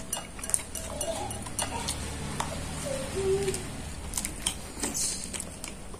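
A metal spoon clinking and scraping against a plastic cup while bread soaked in coffee is eaten, heard as scattered short clicks with mouth sounds of eating.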